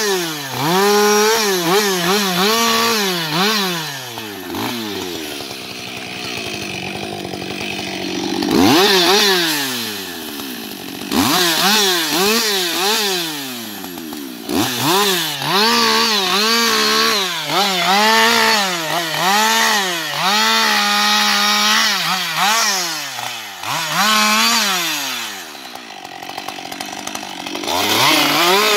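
Husqvarna 560 XP two-stroke chainsaw bucking fallen logs, its engine revving up and down again and again as the throttle is worked through and between cuts. Around five to eight seconds in it drops back to a lower, steadier note before revving up again.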